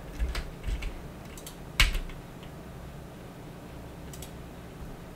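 Scattered single keystrokes on a computer keyboard: a few short clicks in the first second, the loudest just under two seconds in, and another about four seconds in.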